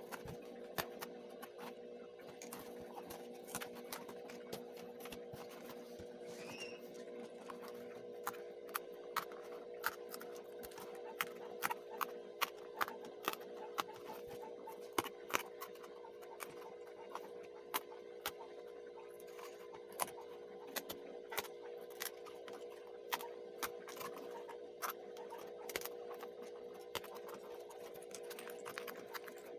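Small die-cut pieces snapping and popping out of a paperboard puzzle sheet as fingers push them free: irregular sharp clicks, coming thick and fast through the middle stretch. A steady low hum runs underneath.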